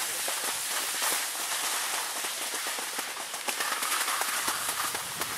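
Skis sliding over packed snow: a steady hiss with many small crackles and scrapes.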